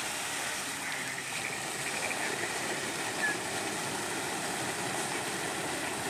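Steady rushing hiss of many fountain water jets spraying up and splashing back down onto a lake.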